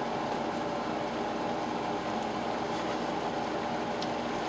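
A steady fan-like hum with a hiss over it, as pasta and vegetables cook in a hot sauté pan; a spatula scrapes the pan once about four seconds in.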